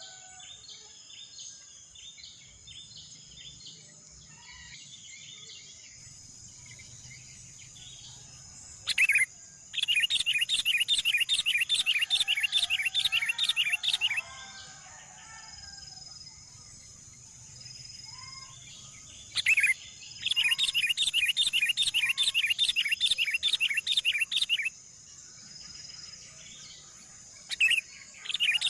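Bulbul nestlings begging in three loud bursts of fast, evenly repeated chirps, each lasting several seconds. A steady high insect drone runs underneath.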